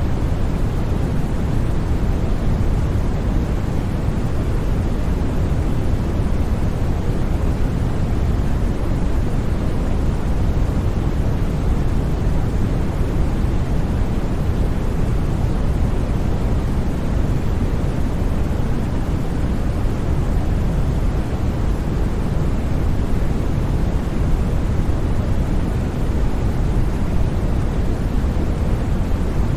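Steady white noise for sleep: a constant, even hiss with most of its weight in the deep low end and thinning toward the top, without any change or break.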